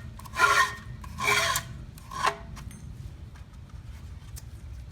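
Starter rope rasping as it is drawn through the recoil starter of a lawnmower's Briggs & Stratton Classic engine, in three strokes in the first couple of seconds, then quieter handling.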